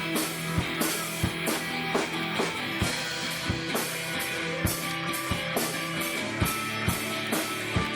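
Background music: a rock track with guitar and a steady drum beat.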